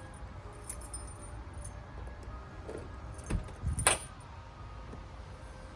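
Car keys jangling with a few light clicks, then two sharp clunks about three and a half and four seconds in, the second the loudest, as the Acura Integra's trunk latch is worked. The latch hook has been wrapped in electrical tape so the latch no longer sticks.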